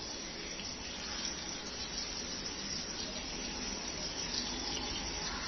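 Batter-coated chicken pieces deep-frying in hot oil: a steady sizzling hiss of bubbling oil.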